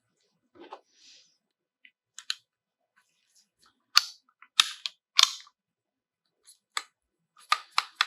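Sharp metallic clicks and clinks of hand work on the tractor's PTO lever housing while set screws are fitted over ball bearings and springs. Three loud clicks come about half a second apart around four to five seconds in, with a quick run of lighter clicks near the end.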